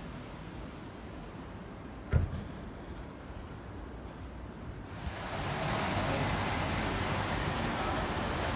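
Outdoor street ambience: a steady hiss of wind on the microphone, with a single thump about two seconds in. The hiss grows louder from about five seconds in.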